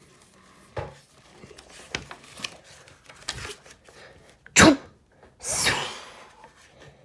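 Pages of a graphic-novel book being turned and handled: light paper rustles and soft clicks, then a sharp sound a little after halfway and a hiss of about a second that follows.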